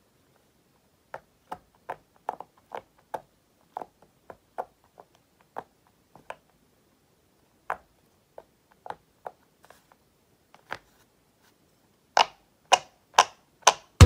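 Bubbles on a silicone pop-it fidget toy being pressed: a string of short pops at an uneven pace, each with a slight hollow ring, ending in four louder pops about half a second apart.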